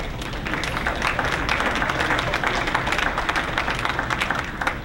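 Audience applauding, building over the first second and stopping near the end.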